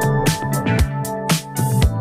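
Background music with a steady beat: drums and sustained pitched instrument notes.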